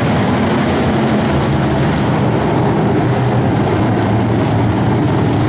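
Engines of a pack of dirt-track race cars running together, a loud, steady sound.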